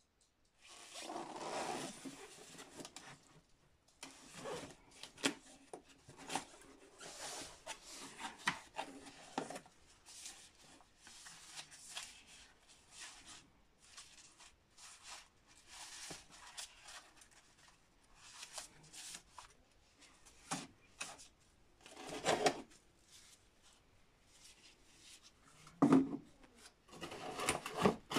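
Cardboard box and paper instruction manual being handled: rustling and scraping in uneven bursts, with scattered light knocks and clicks.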